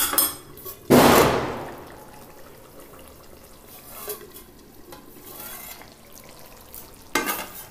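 Steel cooking pan and its lid clattering: a loud clank about a second in that fades over about a second, a few softer knocks, and another clatter near the end. The lid comes off the pan of simmering curry along the way.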